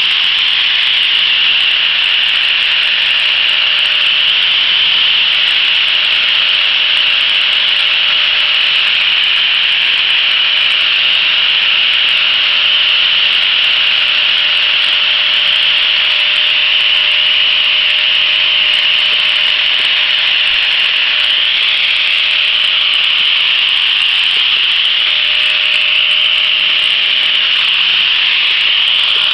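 Power sander running with a purpleheart wood handle held against its spinning sanding disc, a steady abrasive rasping of wood being sanded to shape, over a faint constant motor whine.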